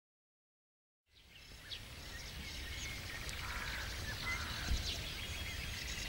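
Silence for about a second, then outdoor ambience fades in: several birds chirping and calling in short high notes over a low steady rumble, with a single soft bump about three-quarters of the way through.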